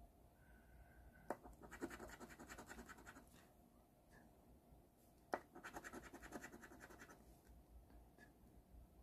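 A coin scratching the coating off an instant lottery scratch-off ticket in two bursts of rapid scraping strokes. Each burst starts with a sharp tap as the coin meets the card.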